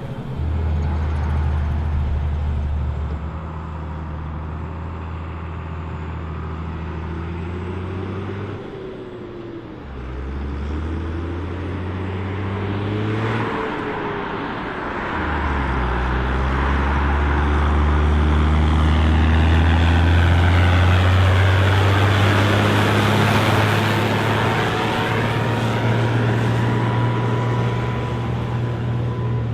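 Case IH 1455 XL tractor's diesel engine running, its note stepping up and down several times. It dips around ten seconds in, climbs again, and is loudest through the second half.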